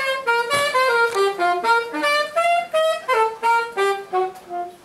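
A single woodwind instrument playing a quick solo melody alone, one note at a time, to show how the tune goes. The notes come in short phrases that run down in pitch and climb back up.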